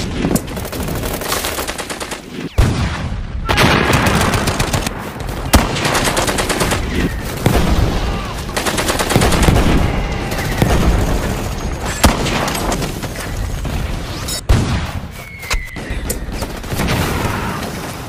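Battle sound effects of sustained rifle and machine-gun fire, a dense run of rapid shots with several louder single cracks standing out.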